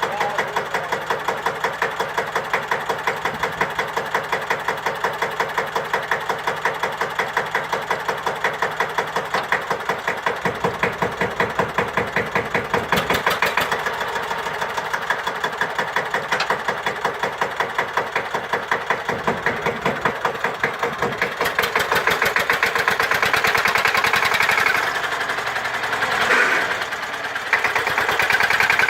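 Single-cylinder air-cooled Deutz F1L612 diesel tractor engine running with an even, pulsing beat, picking up speed about two-thirds of the way through.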